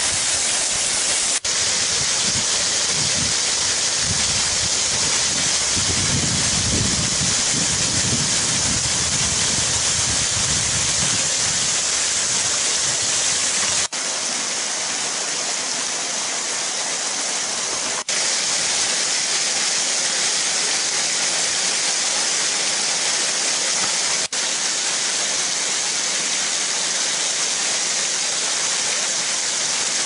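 Steady rushing hiss of falling and flowing water from the Bigăr waterfall's thin streams, running low after a long drought, and the shallow rapids of the river below. The sound is brighter toward the top and breaks off briefly a few times.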